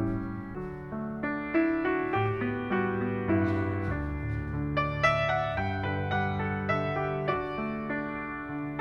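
Solo piano playing a slow, gentle piece, a new note or chord struck about every half second and left to ring and fade.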